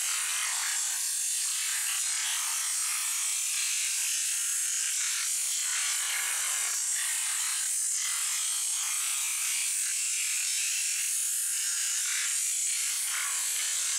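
High-pressure water jet from a pressure washer hissing steadily as it sprays onto raw meat and wet concrete, with the splatter rising and falling a little as the nozzle moves.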